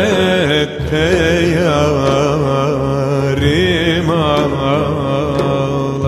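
Background music: a slow melody with sliding, ornamented pitch over a steady low drone.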